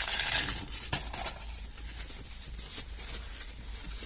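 Rustling of fast-food paper packaging as the food is handled, loudest in the first second and ending in a sharp click, then quieter rustling.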